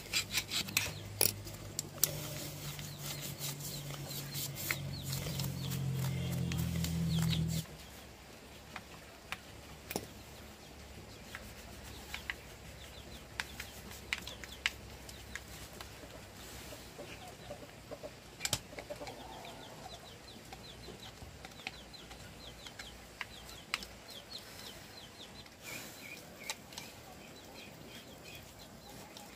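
A motor hums steadily, growing a little louder, then stops suddenly about seven seconds in. After that, chickens cluck amid scattered light taps and clicks.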